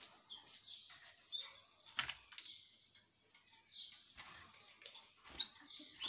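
Caged canaries giving short, high chirps at intervals, with a few sharp clicks about two seconds in and near the end.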